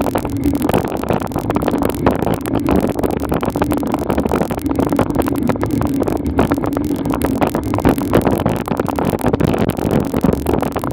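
Steady rumbling noise with dense crackling rattle and a low hum, picked up by an action camera's microphone as it moves slowly up a paved road.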